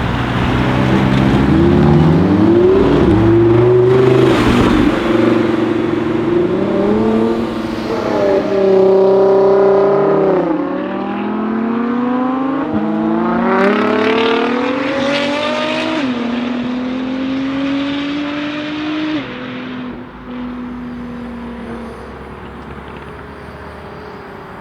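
Lamborghini Huracan's V10 engine accelerating hard through the gears. Its pitch climbs, then drops sharply at each upshift, three times, and the sound fades steadily as the car pulls away.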